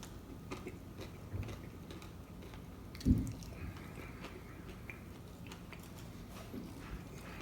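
A person chewing a mouthful of taco close to the microphone, with small wet mouth clicks. One loud, short, low thump about three seconds in.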